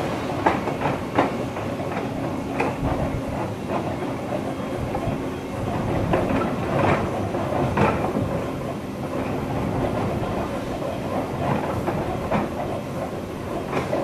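Electric passenger train running along the track: a steady rumble and hum, with wheels clicking irregularly over rail joints.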